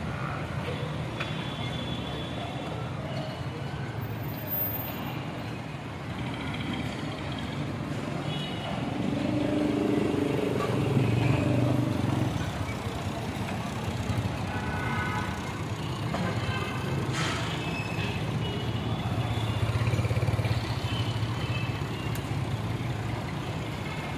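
Massey Ferguson 240 tractor's three-cylinder diesel engine running under load as it pulls a loaded trolley. The engine grows louder about ten seconds in and again near twenty seconds.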